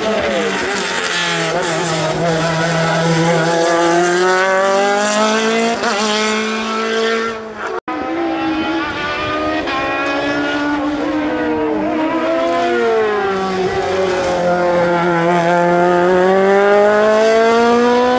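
Sport-prototype race car engines revving high. The pitch drops as a car slows for a bend, then climbs steadily as it accelerates away. The sound cuts off suddenly about eight seconds in, and a second car follows with the same drop and climb.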